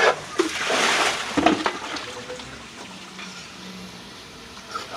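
Water splashing and sloshing in a flooded trench around a leaking water main, loudest in the first two seconds, then settling to a fainter steady wash.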